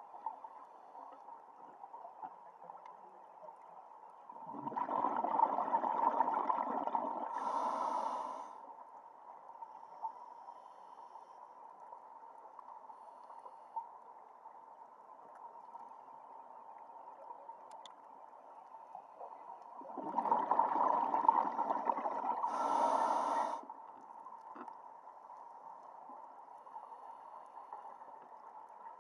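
Scuba diver breathing through a regulator underwater: two breaths with bubbles, each lasting about four seconds, the first about four seconds in and the second about twenty seconds in.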